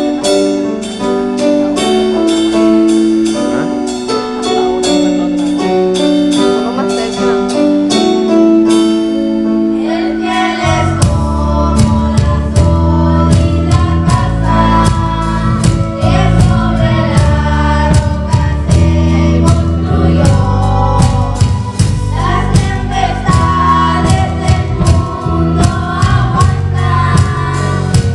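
Upbeat gospel-style song played loud over a PA system. It opens with about ten seconds of instrumental keyboard melody, then bass and drums come in and voices begin singing.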